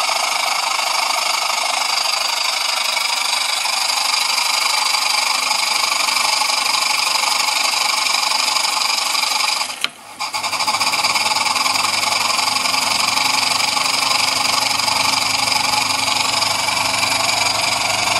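Jensen 20G toy steam engine running steadily on live steam, a continuous even mechanical running noise. About ten seconds in the sound briefly drops out, and after that a low hum runs along with it.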